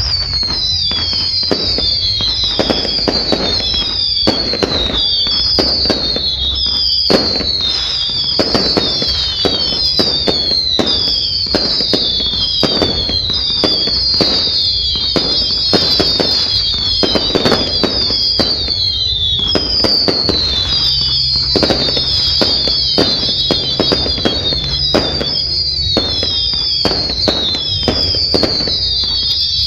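Fireworks going off in a continuous barrage: a rapid string of overlapping whistles, each falling in pitch, over dense bangs and crackling.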